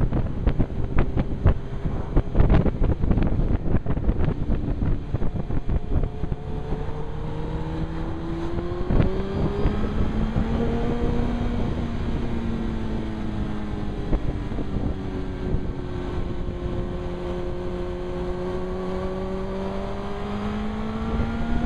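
Suzuki GSX-R 1000's inline-four engine under way, with heavy wind buffeting on the helmet-mounted microphone that dominates the first several seconds. The engine note then comes through, rising about eight to eleven seconds in, easing and dropping through the middle, and climbing again near the end.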